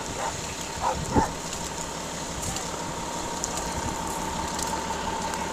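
Steady background hiss and low rumble picked up by a police body-camera microphone, with a thin steady tone and a short knock about a second in.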